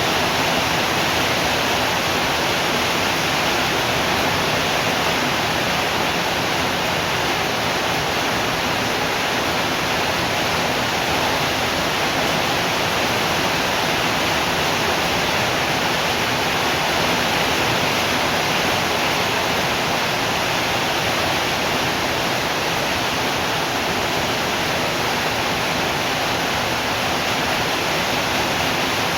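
Steady, heavy rainfall: a dense, even hiss that holds at one level throughout.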